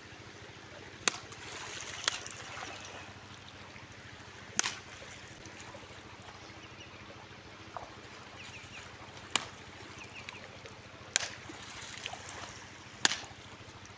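Shallow river water running steadily, broken by about six sharp splashing slaps as a man wading in it strikes at the water with a long stick.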